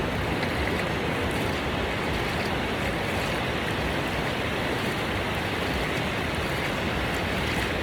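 Ocean surf washing up on a beach, a steady rush of water.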